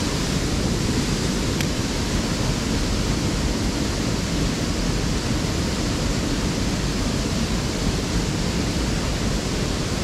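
Steady rushing of a small river's flowing water, an even hiss with no rhythm or pitch.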